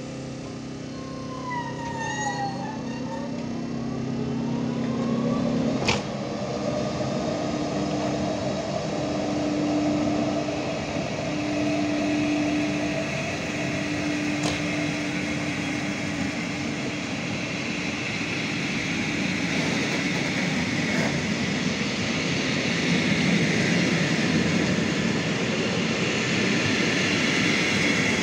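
České dráhy class 162 electric locomotive pulling a passenger train slowly away: its steady equipment hum and a brief gliding electric whine near the start, then a sharp click about six seconds in. Rolling noise from the passing coaches' wheels on the track builds toward the end.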